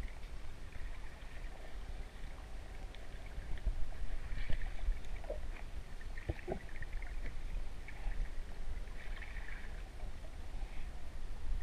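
Water noise picked up by an underwater camera: a steady low rumble with patches of hiss that come and go, and a few faint clicks.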